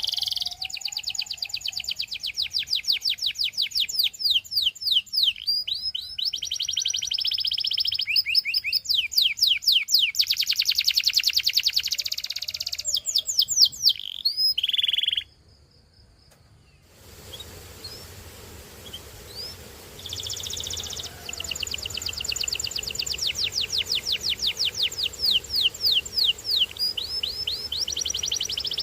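Canary singing long, fast trills of repeated whistled notes, some runs rising and falling in pitch. The song breaks off for about two seconds midway, then starts again.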